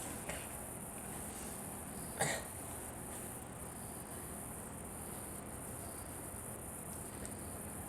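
A girl coughs once, short and sharp, about two seconds in, over a steady high-pitched chirring of insects.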